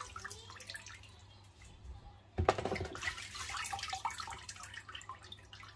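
Hands washing pieces of raw meat in a plastic basin of water, sloshing and splashing, with water dripping and trickling back as pieces are lifted and squeezed. A louder splash comes about two and a half seconds in.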